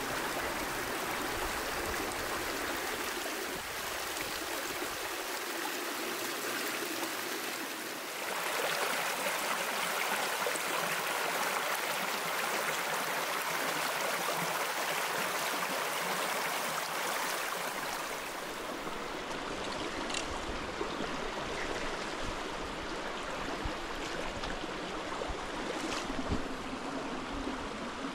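Small mountain brook flowing, a steady rush of water that grows louder about a third of the way in and eases again about two-thirds through.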